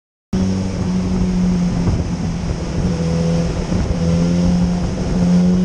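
Suzuki GSX-S1000's inline-four engine running under small throttle openings, its note wavering a little as the throttle is worked. It cuts in suddenly about a third of a second in.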